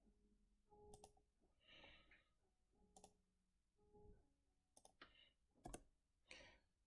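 Near silence broken by several faint, sharp computer mouse clicks.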